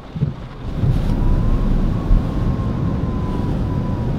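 Hurricane-force wind roaring over the microphone, coming up loud about a second in, with a faint steady whistle held above it.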